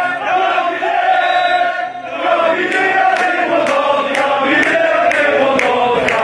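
Football supporters chanting together in unison, a sustained sung chant from a group of voices; about two seconds in the chant dips briefly, then resumes over sharp rhythmic beats at about three a second.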